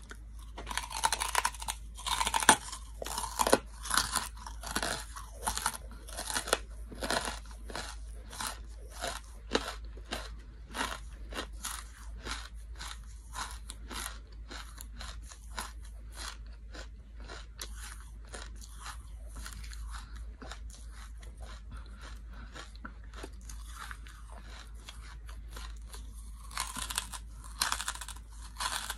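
Hard charcoal chunks being bitten and chewed: sharp, dry crunches, densest in the first ten seconds, easing into steady chewing, with another burst of crunching bites near the end.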